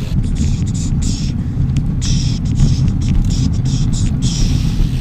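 Wind buffeting the microphone and road noise of a bicycle being ridden: a steady low rumble, with hiss that comes and goes.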